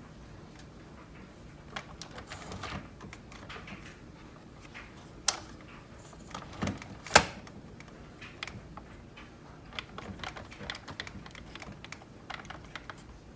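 Scattered light clicks and taps from handling a Keurig coffee maker's plastic parts, with two sharper knocks about five and seven seconds in.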